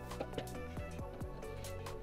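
Background music: an electronic track with a steady kick-drum beat, crisp hi-hat ticks and sustained synth notes.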